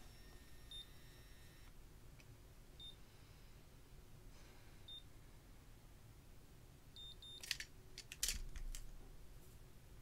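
Curl Secret automatic hair curler beeping its timing signal while a curl sets: short high beeps about every two seconds, then a quick double beep. About eight seconds in comes a cluster of clicks and a knock, the loudest sound.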